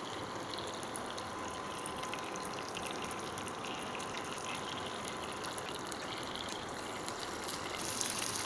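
Tofu cubes, wet with teriyaki sauce, sizzling and crackling in hot oil in a frying pan. The sizzle grows a little louder near the end as more cubes go into the pan.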